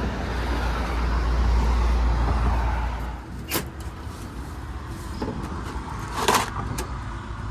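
Low vehicle rumble for about three seconds that then fades, followed by several sharp clicks and knocks, the loudest about six seconds in.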